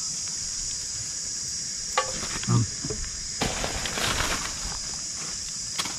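Steady high-pitched drone of insects, with a click about two seconds in and a short burst of rustling around the middle.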